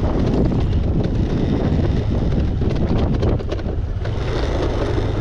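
Honda Click scooter's engine running steadily under load as it climbs a rough, rocky dirt trail, with wind buffeting the microphone and clatter and knocks from the bike jolting over stones.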